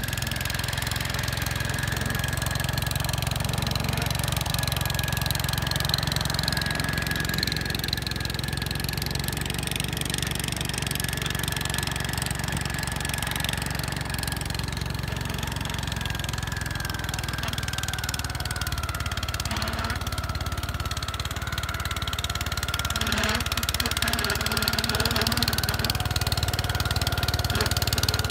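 Gravely 5665 tractor's 12 hp Kohler single-cylinder engine running steadily, with a thin high whine that drops slightly in pitch about two-thirds of the way through.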